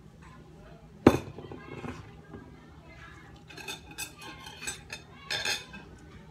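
A plate of rice set down on a table with a sharp knock about a second in, then a spoon clinking against a glass bowl and the plate several times.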